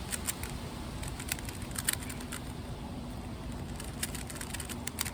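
Rubik's cube being turned quickly by hand: irregular short plastic clicks of the layers turning, over a steady low background rumble.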